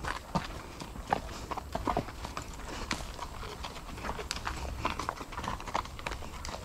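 Horses walking on a dirt woodland trail: irregular hoofbeats from the ridden horse and the horses ahead in single file.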